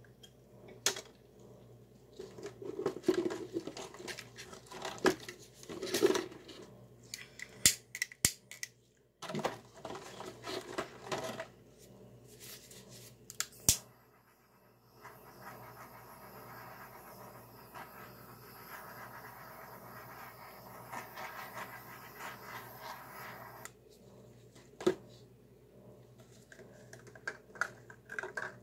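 Clicks, taps and scrapes of hands and tools handling a freshly poured acrylic painting and its paint cups on a wire rack. About halfway through a steady hiss starts, lasts about eight seconds and stops suddenly, followed by a few more clicks.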